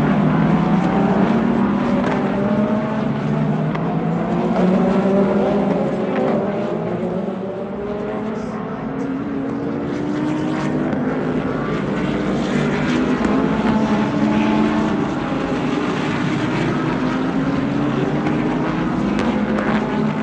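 Many race car engines running at once as a pack of GTP prototypes and GT3 cars streams past, their overlapping pitches climbing as they accelerate through the gears.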